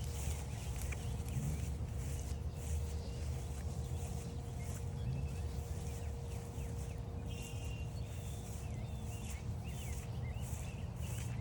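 Footsteps crunching along a trail, with several songbirds chirping and warbling in the background, mostly in the second half, over a steady low rumble.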